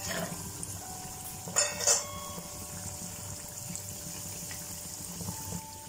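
Cashew nuts tipped from a steel bowl into hot ghee in a small pan, with a short clatter about a second and a half in, then the ghee frying them with a low, steady sizzle.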